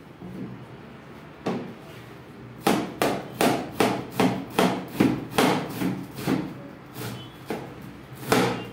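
Kitchen knife chopping through a head of cabbage onto a cutting board: a quick run of chops, about three a second, with a few slower single chops before and after.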